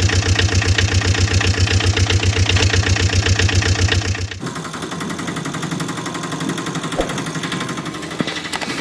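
Engine running with a fast, even, heavy chugging beat. About four seconds in it cuts abruptly to a lighter, quieter engine sound.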